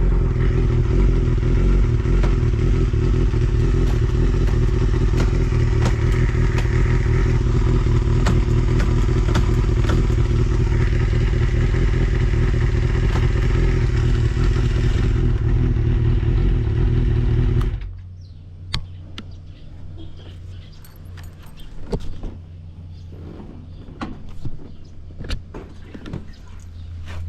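Honda Jade 250 cc inline-four idling steadily through a WR'S four-into-one full exhaust, running cleanly with no abnormal noise, then switched off abruptly about 18 seconds in. Afterwards only a faint low hum and scattered small clicks and knocks.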